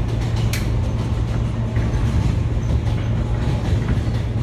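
Inside an R160B subway car with Siemens propulsion, running along elevated track: a steady loud rumble of the train and its wheels on the rails, with one sharp click about half a second in.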